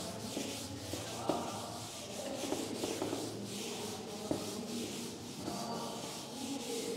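Cloth duster wiping chalk off a chalkboard in repeated strokes, a faint rubbing swish, with a couple of light knocks against the board.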